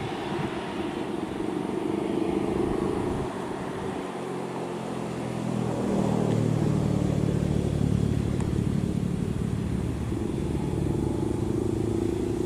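Vehicle engine running under load, its note easing off around four seconds in and then picking up again, louder, from about six seconds in.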